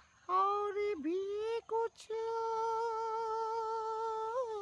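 Dog howling: a few short wavering cries, then one long steady howl held from about two seconds in, with a brief lift in pitch near the end.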